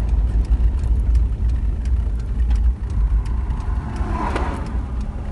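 Car driving along a road, heard from inside the cabin: a steady low rumble of engine and tyres with scattered light clicks.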